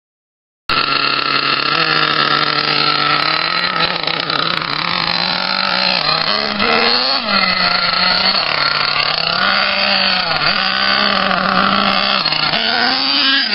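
Axial .28 two-stroke nitro engine of an HPI Savage RC monster truck running at high revs, its pitch rising and falling again and again as the throttle is worked. It starts abruptly just under a second in.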